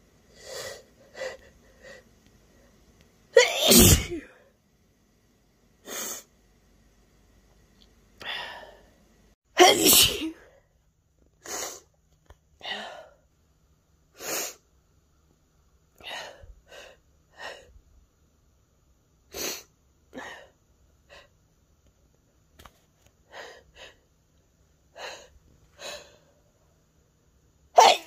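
A person sneezing over and over in short sneezes. Three are much louder, about three seconds in, about ten seconds in and near the end.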